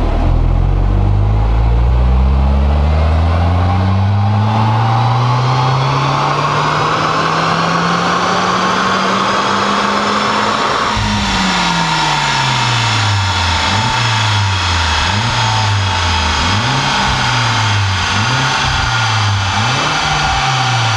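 Audi A3 1.8T's turbocharged four-cylinder petrol engine heard at the twin-tip exhaust, its revs climbing steadily for about ten seconds before dropping back. A series of quick rev blips follows, rising and falling several times.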